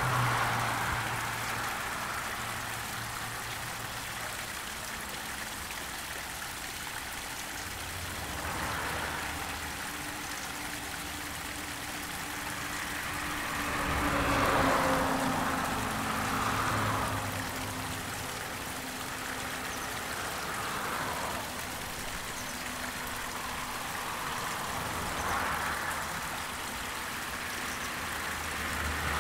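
A steady stream of liquid splashing, like a man urinating, swelling and easing off every few seconds. Low held tones run underneath.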